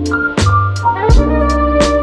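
Background music: an upbeat instrumental track with keyboard chords over a steady bass and a regular drum beat of about two strikes a second.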